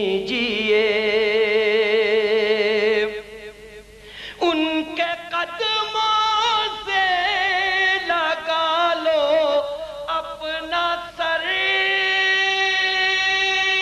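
Male solo voice singing an Urdu manqabat, stretching the last word of the refrain 'kījiye' into a long wavering held note. It breaks off about three seconds in, returns in an ornamented run of sliding pitches, and settles into another long held note near the end.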